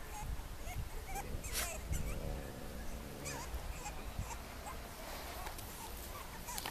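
Young French bulldog puppies giving short, faint whimpering squeaks now and then, with light rustling in between.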